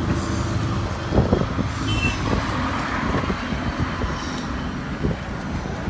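Steady rumble of highway traffic, with light crinkling of a plastic bag as bananas are packed into it.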